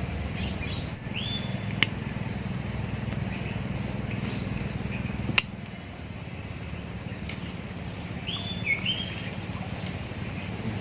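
Short, high bird chirps, one cluster about a second in and another near the end, over a steady low hum, with two sharp clicks.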